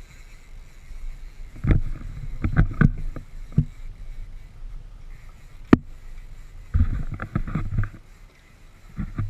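Irregular knocks and thumps aboard a small boat over a steady low rumble, with one sharp click about midway.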